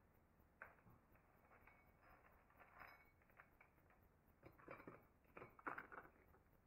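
Faint clinks and taps of angle-grinder carving discs being handled, fitted against the grinder and set down on a stack, busier about four and a half to six seconds in.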